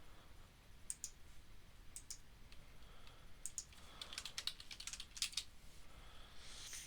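Faint computer keyboard typing: a few separate key clicks, then a quick run of keystrokes about four seconds in.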